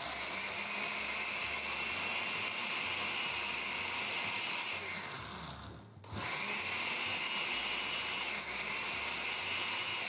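Countertop electric blender running with a steady high whine, blending pomegranate seeds with water and sugar; it stops for a moment about six seconds in and starts again.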